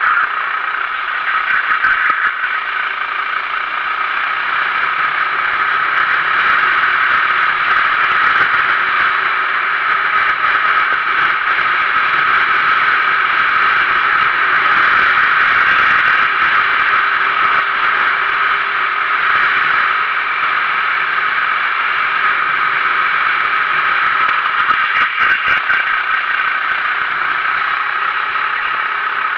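Onboard sound of a Sodi RT8 kart racing, its 390cc four-stroke engine running hard at speed, with a steady rushing noise. The level stays nearly even throughout.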